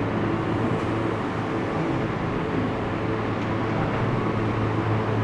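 Steady low hum with an even hiss, the constant background drone of the room's machinery, with no change throughout.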